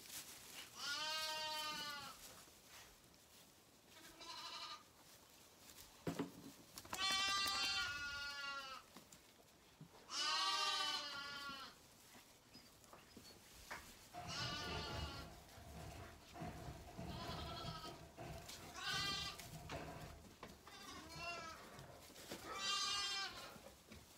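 Zwartbles lambs bleating over and over, about nine quavering calls each a second or two long, with short gaps between them.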